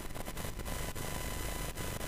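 Steady electronic static hiss on the broadcast audio feed, with a faint high whine, broken by a few very brief dropouts.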